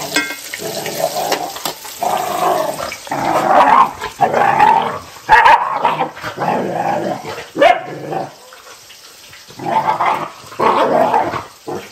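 Two dogs play-fighting, growling and barking in irregular bursts, with a quieter gap of a second or two about eight seconds in.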